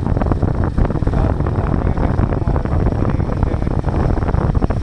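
Royal Enfield single-cylinder motorcycle engine and exhaust running steadily while the bike is ridden, with wind buffeting the microphone.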